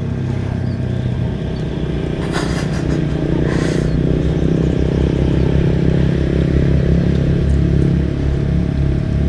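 An engine running steadily at low revs, growing a little louder about seven seconds in, with two brief clattering noises a few seconds in.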